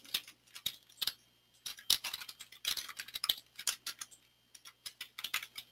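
Typing on a computer keyboard: irregular key clicks as a username and password are entered, with a couple of short pauses.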